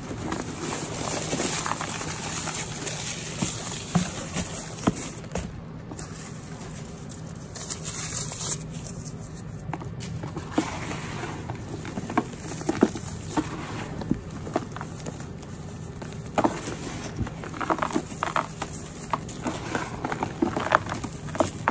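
Hands pressing, rubbing and crumbling a bowl of fine dusty powder and crumbly chunks: soft crunches and crackles, with the crunches coming thicker and sharper in the last few seconds.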